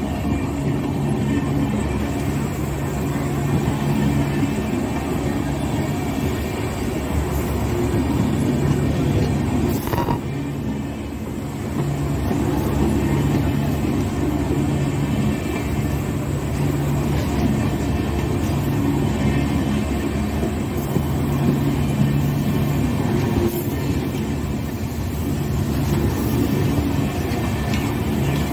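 Passenger train coaches rolling past at close range: a steady rumble of wheels on rail with a low hum that swells and fades every few seconds.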